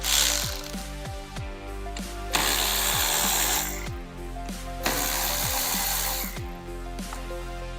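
A power tool running in two bursts of about a second and a half each: the first a little over two seconds in, the second near five seconds. Background music with a steady bass beat plays throughout.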